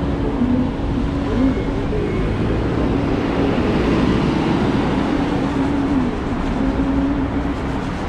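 Steady city street traffic noise, with a low tone that holds and shifts in pitch now and then.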